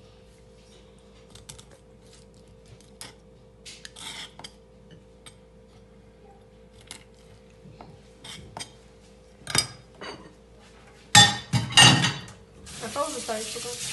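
Kitchen knife cutting the heads off smelt on a wooden cutting board: light, scattered taps of the blade on the board. About eleven seconds in, a loud burst of clattering as dishes and utensils are handled in a steel sink, then a kitchen tap runs near the end.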